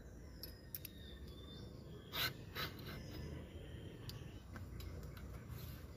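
A few light clicks and knocks from a Clarks hydraulic disc brake lever being handled and positioned on a bicycle handlebar, the two loudest a little over two seconds in, under half a second apart, over faint background noise.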